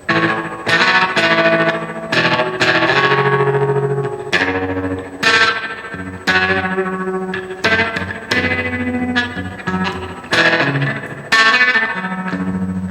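Electric guitar, a Gibson Les Paul, played through an Electro-Harmonix Oceans 11 reverb pedal into a Blues Cube amp: single notes and chords picked one after another, each ringing out into a long reverb tail.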